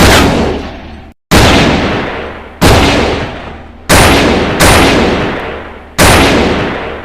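.357 Magnum revolver firing six shots, each with a long decaying echo, mostly about a second and a quarter apart, with two closer together midway.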